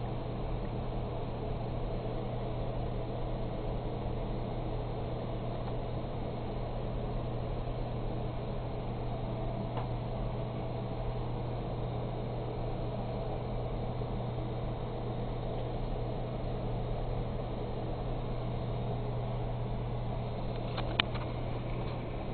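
Steady fan noise and low electrical hum of a running HP-382 server, with a couple of short clicks near the end.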